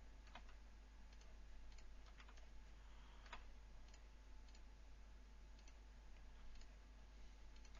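Faint, scattered computer mouse clicks at irregular intervals over a low steady hum, as edges are clicked in and out of a selection.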